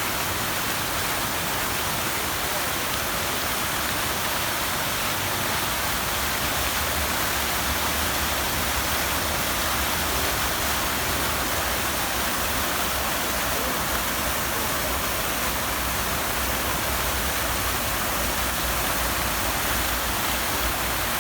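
Steady rushing water making an even hiss, with a low rumble underneath from about six seconds in.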